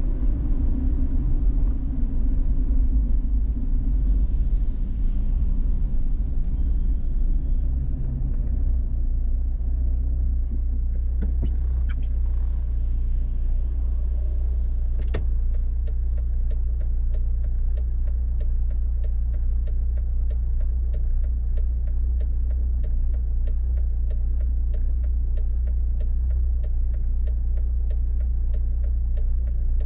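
Car running on city streets: low road and engine rumble that rises and falls at first, then settles into a steadier low hum. From about halfway, a regular rapid ticking sets in and keeps on.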